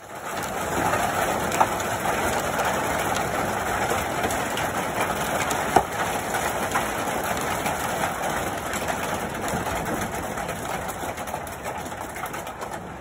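Heavy hailstorm: a dense, steady clatter of hailstones and rain pelting down, with sharp single hits standing out, two louder ones about a second and a half and six seconds in. It eases slightly toward the end.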